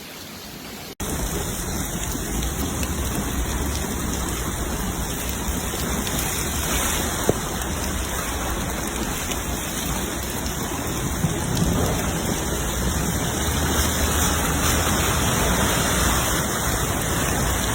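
Heavy storm rain pouring steadily, starting suddenly about a second in, with a deep low rumble underneath.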